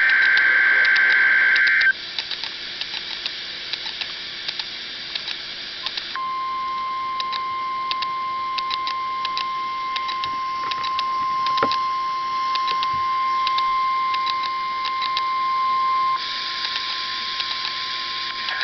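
An Emergency Alert System broadcast received over radio. The end of a loud SAME digital header burst is followed by a few seconds of crackling static. Then comes a single steady alert tone of about 1050 Hz, the weather-radio warning alarm, which holds for about ten seconds over the crackle and drops in level near the end.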